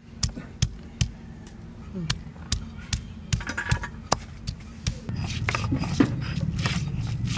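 Cylindrical stone pestle of a sil-batta (flat grinding stone) crushing ginger and garlic: sharp stone-on-stone knocks, two or three a second. About five seconds in it turns to a steady grinding rumble as the stone is rolled back and forth over the paste on the slab.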